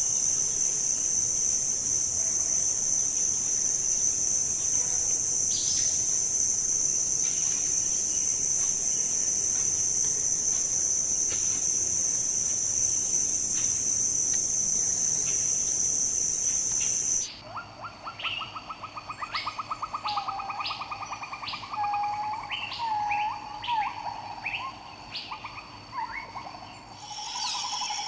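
Steady high-pitched insect drone for about the first seventeen seconds, which cuts off abruptly. Forest birds then call: a fast trill, a run of short whistled notes and scattered chirps. The insect drone comes back near the end.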